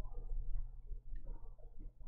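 Faint light taps from an ink brush against a ceramic ink dish and the paper, a couple in the first half, over a steady low hum.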